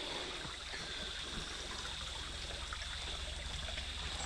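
Small forest stream trickling steadily, with a low, faintly pulsing hum underneath, taken for a distant helicopter warming up before take-off.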